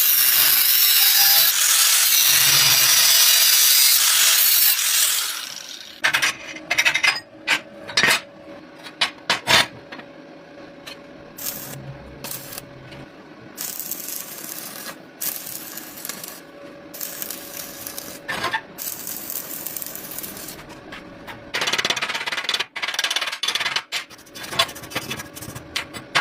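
Power tool working metal, most like an angle grinder: one long loud grind for about the first five seconds, then many short bursts through the rest, over a faint steady hum.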